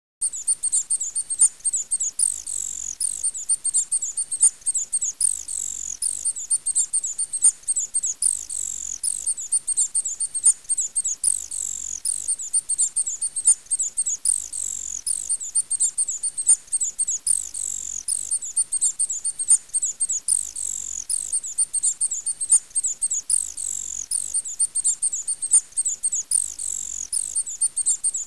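High-pitched chirping, with rapid chirps falling in pitch that repeat in the same pattern about every three seconds, like a looped night ambience track of birds or insects. A faint low thud comes with each repeat.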